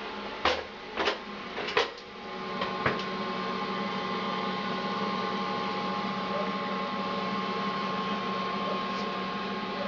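Several sharp clicks, then a NuTone 920 bathroom wall heater's small fan motor starting up: the hum swells over about a second and then runs steadily, pretty quiet.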